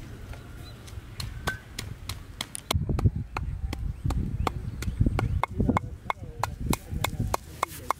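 Wooden pestle pounding salt and red chili in a small mortar: a rapid, uneven run of dull thumps with sharp knocks that starts about three seconds in. A few light clicks of dishes being handled come before it.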